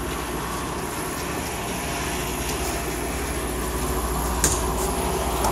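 Steady low machine hum with an even hiss from commercial kitchen refrigerators and ventilation, with one short click about four and a half seconds in.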